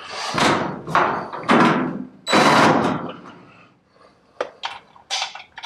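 Knocks and rattles from work on a dryer's sheet-metal back panel. Three heavier knocks come in the first three seconds, the loudest about two and a half seconds in, then several short, light clicks near the end.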